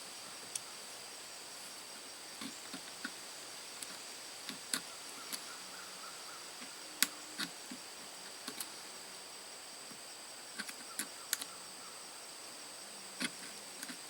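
A small chisel-pointed knife blade cutting into hard seasoned maple, giving irregular sharp little clicks and ticks as wood chips are taken out. A steady high-pitched cricket trill runs underneath.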